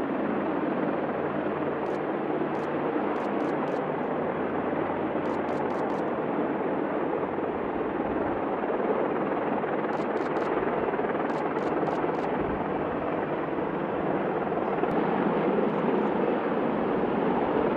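AH-64 Apache attack helicopter hovering low: the steady noise of its main rotor and twin turboshaft engines.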